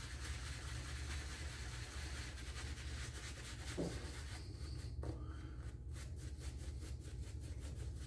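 Omega 10048 boar-bristle shaving brush working shaving-soap lather over a stubbled face, a soft scratchy rubbing. From about halfway through it settles into even back-and-forth strokes, about three a second.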